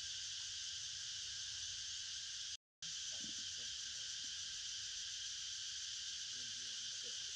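Steady high-pitched chorus of insects, an even hiss that drops out completely for a moment about two and a half seconds in.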